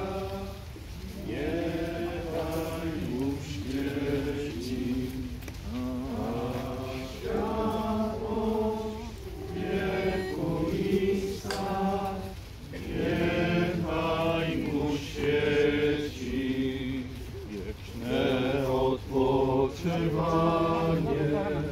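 Men's voices singing a slow funeral chant together, in held notes and phrases broken by short pauses for breath.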